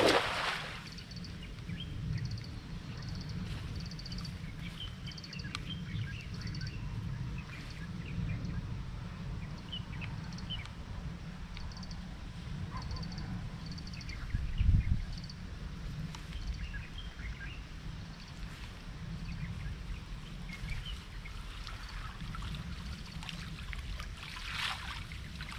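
Outdoor ambience: a steady low wind rumble on the microphone, with short high chirps repeating in small groups and scattered bird calls. A single dull thump about fifteen seconds in.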